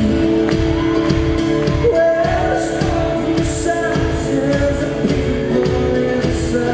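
Live music in a large hall: singing over a strummed acoustic guitar.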